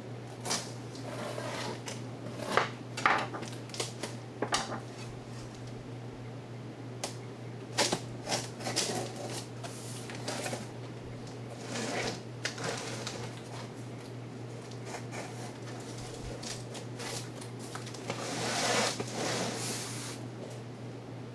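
Scattered clicks, clunks and rustles of hard objects being handled, over a steady low hum.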